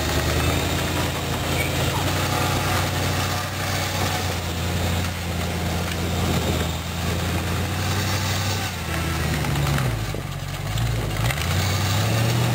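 Chrysler 318 V8 engine of a homemade articulated tractor running steadily while it plows snow, its speed dipping and coming back up about ten seconds in.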